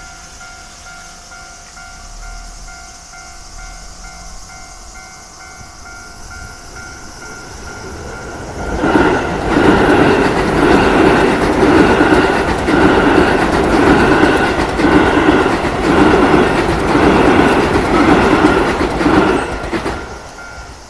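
Japanese level-crossing warning bell ringing in a steady repeating pattern. About nine seconds in, a Keio Line electric train passes over the crossing at speed, its wheels clattering rhythmically about once a second as car after car goes by. The train noise lasts roughly eleven seconds, then drops away.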